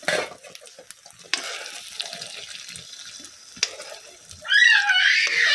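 Egg rolls frying in a pan: a steady light sizzle with scattered clicks. Near the end, a loud, high-pitched wavering squeal lasting about a second.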